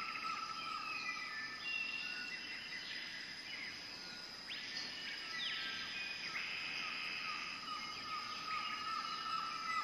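Birds chirping, with short calls coming and going over a steady high drone.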